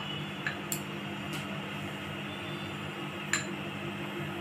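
A few light clicks of a plastic spoon against a bowl as flour is spooned in, over a steady low hum.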